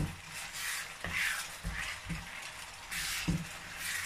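A spoon stirring thick pepper sauce in a frying pan, scraping along the pan in repeated strokes about once a second, with a few low knocks against the pan.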